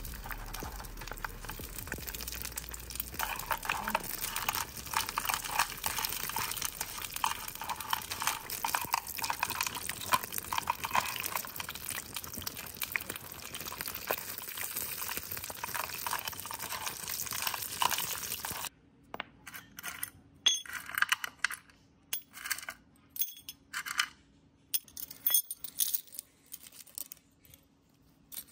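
Small metal parts clinking and scraping in a dense run of rapid clicks, which stops suddenly about two-thirds of the way through. After it come scattered single clinks.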